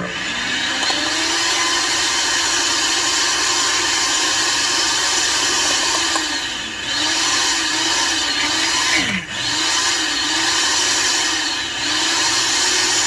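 Cheap countertop blender starts up and runs loud on frozen fruit, frozen yogurt and almond milk. From about halfway through, its motor pitch dips and recovers about once a second, with a brief break about nine seconds in: the hard frozen fruit is sticking around the blades.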